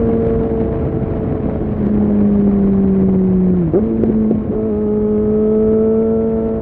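Suzuki Bandit 650's four-cylinder engine running under way, its note sinking slowly, then a quick dip and pick-up a little past halfway, as in a gear change, before it holds steady again.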